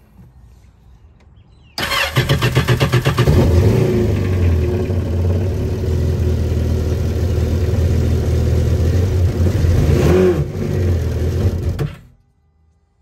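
Yamaha GP1800R WaveRunner's supercharged 1.8-litre four-cylinder engine starting about two seconds in, running steadily, given a short rev near ten seconds, and shut off about twelve seconds in. Its supercharger clutch has failed, so the supercharger is not spinning.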